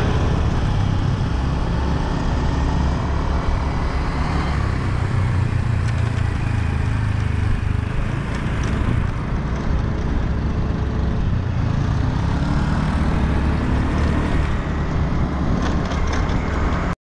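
Motorcycle riding along a road, its engine running under a steady, heavy wind rumble on the microphone.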